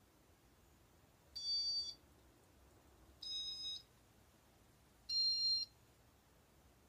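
Three short electronic beeps, each about half a second long and spaced just under two seconds apart, with the second a little quieter. They come from a Casablanca Venus ceiling fan's Inteli-Touch electronics, which beep to acknowledge commands from its W11 wall control.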